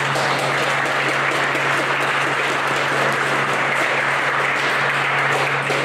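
Crowd applauding, a steady round of clapping, with a steady low hum underneath.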